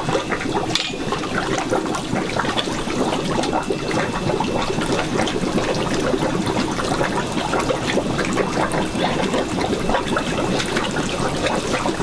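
Water churning and splashing steadily in a concrete fish-holding vat, with a long-handled fish net being swept through the water.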